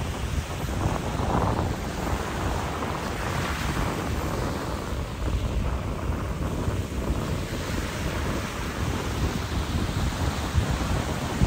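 Small waves washing up a sandy beach, with wind buffeting the microphone in a steady low rumble.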